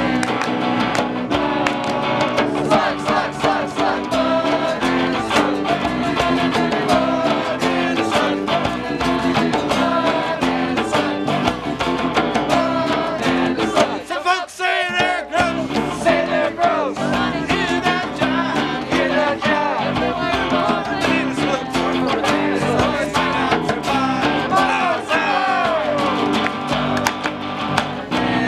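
A group of voices singing a campfire song to strummed acoustic and electric guitars. The music breaks off briefly about halfway through, then carries on.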